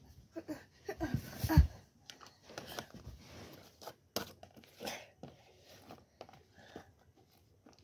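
Scattered clicks, taps and rustles of small plastic and paper items being handled and moved about, as in a search for a dropped lid.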